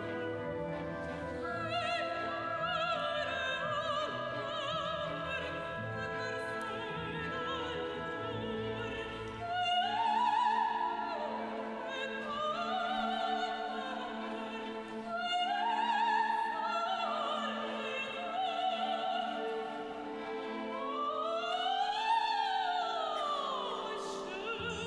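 A soprano sings an operatic waltz aria with vibrato over a full orchestra of strings and winds. Several quick runs sweep up and back down, the widest one near the end.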